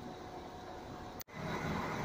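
Irish Rail Intercity diesel railcar running steadily while it stands at the platform, with a faint steady hum over the rumble. About a second in the sound cuts out for an instant and comes back louder.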